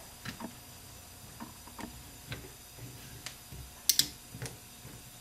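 Light metallic clicks and taps as a Ford C6 transmission valve body and its plate are handled and lined up. A sharper click comes about four seconds in.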